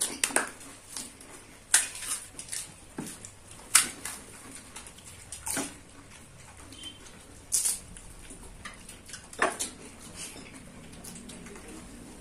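Crisp cracks of hollow fried panipuri shells being poked open with fingers, a sharp crack every second or two.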